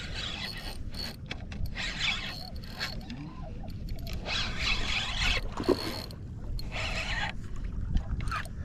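Fishing reel being cranked in several short bursts, a ratcheting, scraping mechanical whir, over a low wind rumble on the microphone.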